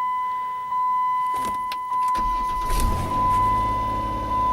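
A steady high electronic warning tone from the 2006 Dodge Grand Caravan's dash; about two seconds in the van's engine cranks, catches and settles into a steady idle.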